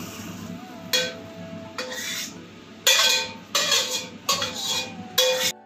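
A metal spatula scrapes cooked fish out of a wok into a glass bowl: about six separate sharp scrapes, each with a metallic ring.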